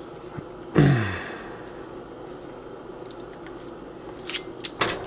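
Small metallic clicks and rattles as a sight-pusher tool and a Glock 17 slide are handled, with a cluster of sharp clicks near the end. About a second in comes a brief low hum that falls in pitch, the loudest sound here.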